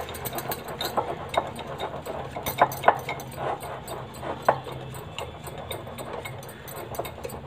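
Thick gram-flour (besan) batter being mixed by hand in a glass bowl: irregular wet slaps and clicks, with a few louder ones between about two and a half and four and a half seconds in.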